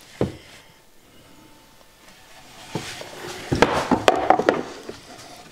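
Plywood workpiece being handled and laid flat on a wooden workbench: a single knock about a quarter second in, then a cluster of knocks and scraping past the middle as it is set down and shifted into place.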